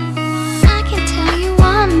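Background music: a pop/R&B track with a vocal-like melody over sustained chords and a strong bass-drum beat.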